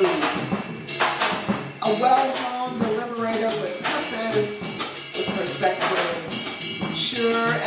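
Live jazz from a drum kit, with cymbal and snare strokes, and an upright double bass playing an instrumental passage.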